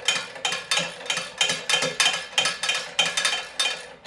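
Sharp metallic clinks repeating evenly about three times a second: steel tool and hardware working on the wood chipper's parts during assembly.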